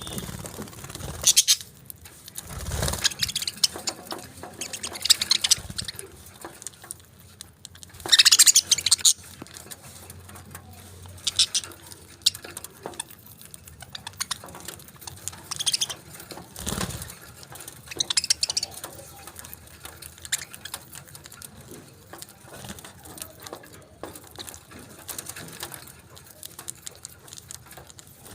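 Pet parakeets chirping in short, scattered bursts every couple of seconds, the loudest about eight seconds in, with small clicks and scuffles between calls.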